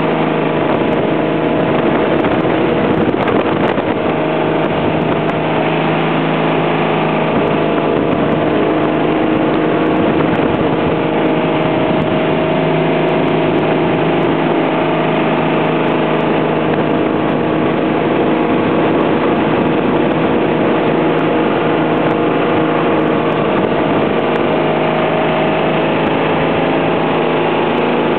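Ski boat's engine running steadily at towing speed, heard from on board, over the rush of the boat's wake and spray.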